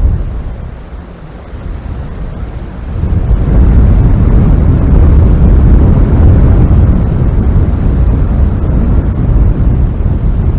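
Wind buffeting an outdoor camera microphone: a loud, low rumble that swells about three seconds in and stays strong.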